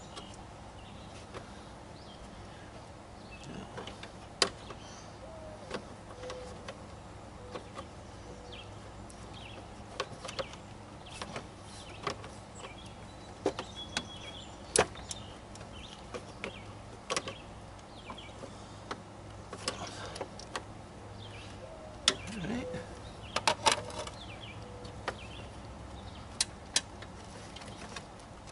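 Irregular clicks, taps and light knocks of hands and tools on plastic and metal parts down in a car's engine bay, around the cooling fan assembly, which is being felt over for its fasteners.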